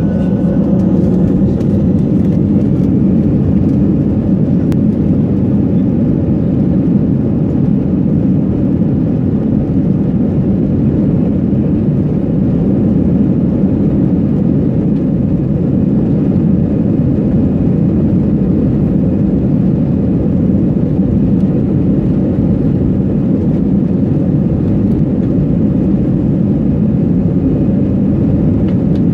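Steady jet engine and rolling noise heard inside the cabin of an Airbus A320 moving on the ground, with the engines at low power: an even, low rumble that neither rises nor falls.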